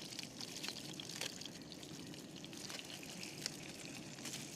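Curry sauce quietly sizzling and crackling as it fries in a pan on a camping stove.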